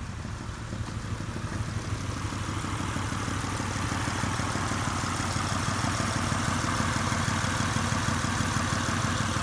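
Car engine idling steadily, growing somewhat louder over the first few seconds and then holding level.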